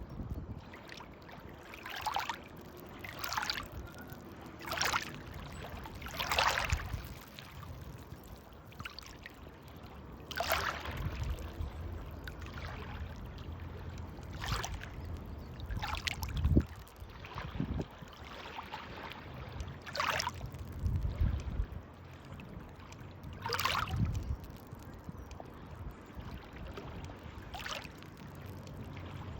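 Estuary water splashing in small waves, a short swish every one to four seconds at an uneven pace, over a steady low rumble.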